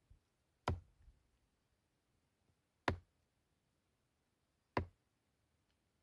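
A knife chopping raw meat on a wooden tree stump: three sharp knocks, about two seconds apart, as the blade strikes the wood.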